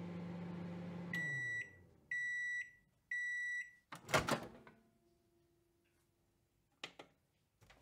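Microwave oven running with a steady low hum that winds down as the timer ends, then three high beeps about a second apart signalling that cooking is done. The door then opens with a short clatter, the loudest sound, and two faint clicks follow near the end.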